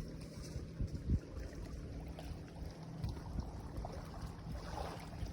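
Wind rumbling on the microphone, with a faint steady low hum and a few soft knocks, one louder about a second in.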